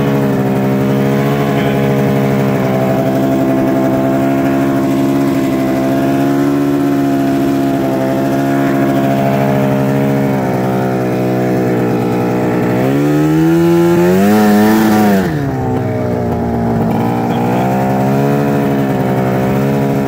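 Arctic Cat ZR snowmobile's two-stroke engine running steadily under way, then revving up for about two seconds some thirteen seconds in before dropping back quickly.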